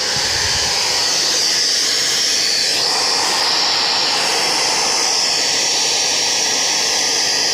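Hair dryer or blower running steadily on the cat's fur: a loud, even rush of air.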